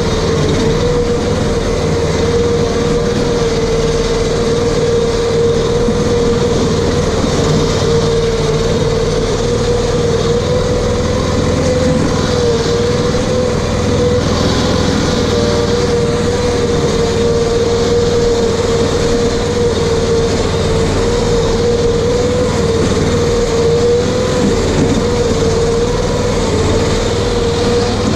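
RS1000 off-road vehicle running steadily while being driven, its engine and drivetrain noise joined by a steady whine that wavers slightly in pitch.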